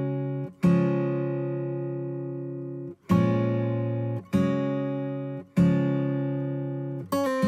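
Background music: an acoustic guitar strumming slow chords, each left to ring out and fade, with a few quicker strums near the end.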